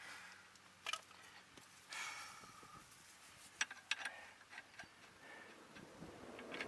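Faint scattered clicks and light knocks, with a short rustle about two seconds in.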